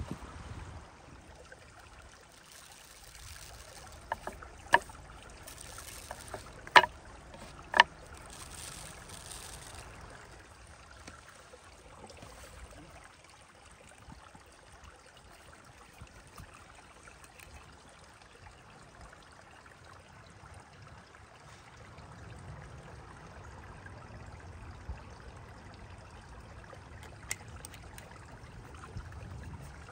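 A stream running and trickling steadily, with seasoning sprinkled onto raw beef on a wooden board and a few sharp taps between about four and eight seconds in.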